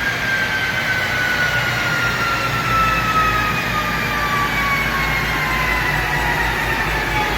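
Supercharged 2014 Dodge Charger R/T on a chassis dyno, with a whine that falls slowly and evenly in pitch as it spins down after a pull, over a steady low rumble.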